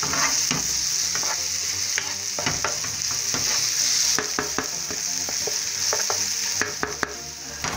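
Chopped onion and garlic sizzling in hot oil in a nonstick frying pan while a wooden spoon stirs them, a steady hiss with many small sharp clicks throughout. The onion and garlic are being browned as the base of a sauté.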